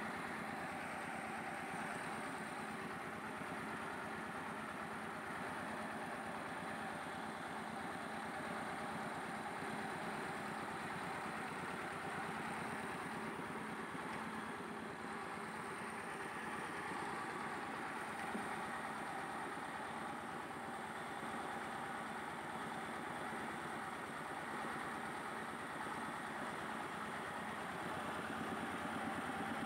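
Engine-driven rice huller of a truck-mounted mobile rice mill running steadily, milling paddy into rice on its first pass.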